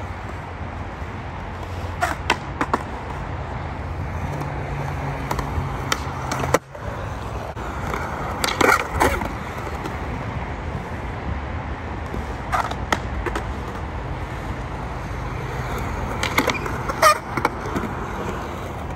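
Skateboard wheels rolling on concrete with a steady low rumble, broken several times by sharp clacks of the board.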